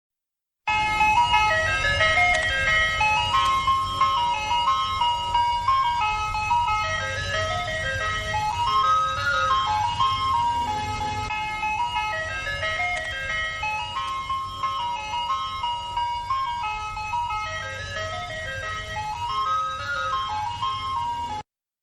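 A repeating chime-style jingle, a simple high-pitched stepping melody that loops about three times over a low rumble. It starts abruptly and cuts off suddenly near the end.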